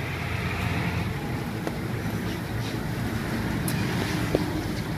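Steady outdoor street noise: a continuous low rumble, like road traffic, with a few faint clicks.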